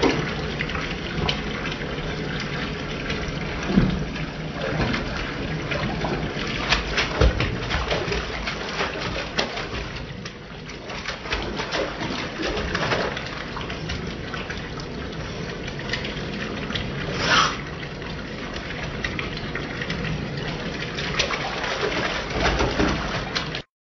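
Bathtub faucet running steadily into a shallow tub of water, with occasional splashes as a cat moves about in it.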